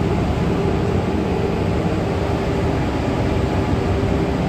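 Steady drone of a WCAG-1 electric locomotive's auxiliary machinery running, heard inside the driver's cab, with a constant hum tone through it.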